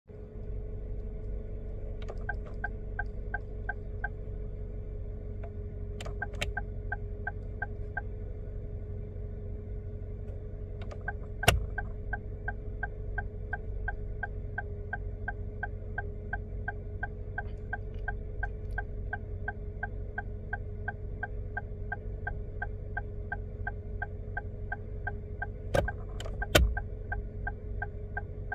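Car turn-signal flasher ticking steadily, a few ticks a second, in two short runs early on and then without a break from about eleven seconds in. A few louder sharp clicks mark where the ticking starts and come again twice near the end, over a steady low hum.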